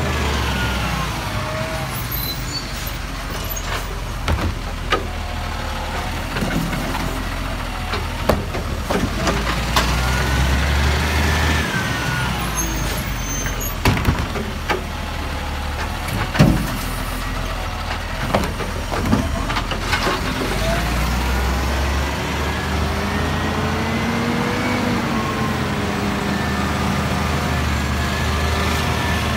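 Hino side-loader garbage truck's diesel engine running and revving up and down as its side arm lifts and empties a wheelie bin, with several sharp clunks from the bin and arm.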